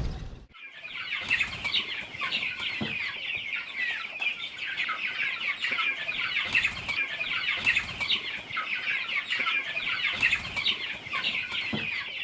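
A large flock of young chickens peeping continuously, many overlapping short high chirps that start abruptly about half a second in.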